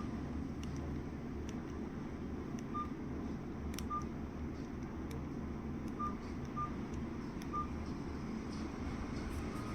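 Nokia keypad phone's key-press beeps: about six short, single-tone beeps at irregular intervals as its buttons are pressed, over a steady low background hum.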